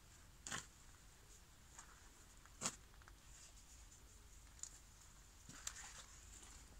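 Near silence with a faint hiss, broken by three brief clicks: about half a second in, near three seconds in (the loudest), and near the end.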